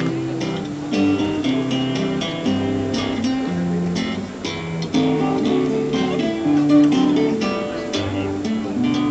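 Acoustic guitar music playing a tune, its notes changing about every half second.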